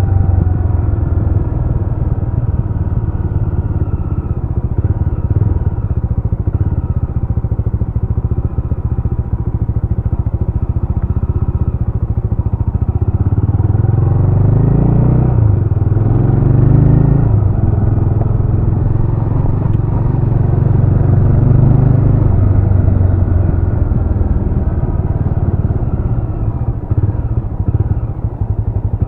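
Jawa RetroTrail 650's single-cylinder engine running under way. The engine note rises and falls with the throttle about halfway through.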